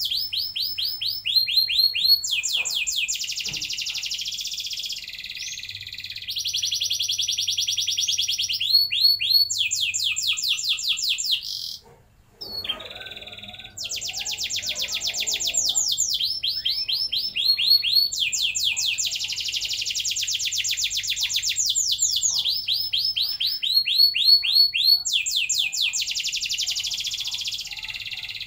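Domestic canary singing a long, almost unbroken song of rapid trills and rolls, one fast string of repeated notes after another. The song breaks off briefly about twelve seconds in.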